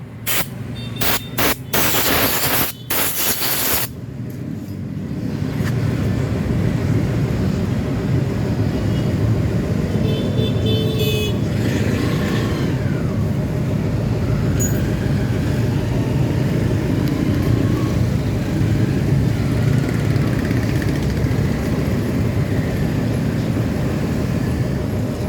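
Yamaha RX King's 135 cc two-stroke single-cylinder engine test-running with newly fitted reed valve membranes. A few sharp bursts of noise in the first four seconds, then it runs steadily.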